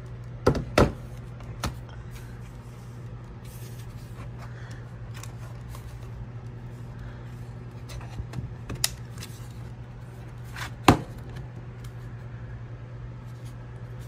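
Hard plastic clicks and clacks of a ThinkPad T420 laptop being handled upside down on a desk while its battery is unlatched and pulled out. There are a few sharp knocks in the first two seconds, a cluster of clicks past the middle, and the loudest clack about eleven seconds in, all over a steady low hum.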